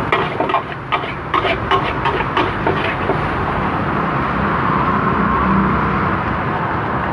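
Metal spatula clattering and scraping against a wok as fried rice is stir-fried, with quick knocks through the first few seconds, over a steady rushing background noise.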